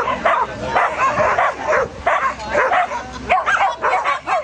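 A dog barking in quick, high yips, about three a second, without pause.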